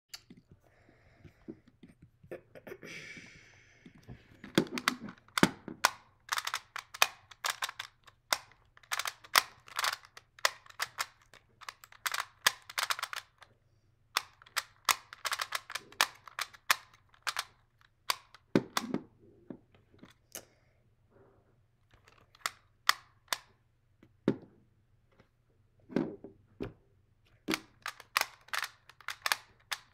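Rubik's Clock puzzle being turned by hand: rapid runs of sharp clicking as the dials are spun and the pins pushed, with a few louder knocks among them. A brief rustle a few seconds in.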